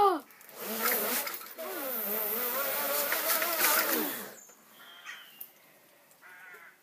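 A person's long, loud drawn-out cry lasting about three and a half seconds, its pitch wavering up and down.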